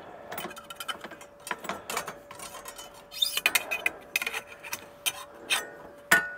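Irregular clinks and knocks of a small rolled steel ring being handled, with a few brief metallic rings and the sharpest knock near the end. A faint steady hum runs underneath.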